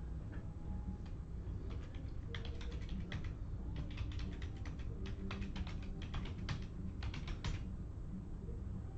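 Typing on a computer keyboard: irregular runs of key clicks starting about two seconds in and stopping near the end, over a steady low hum.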